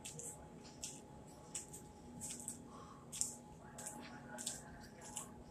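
Close-up mouth sounds of a person chewing food: faint, irregular wet clicks and smacks, about two a second. A faint steady hum runs underneath.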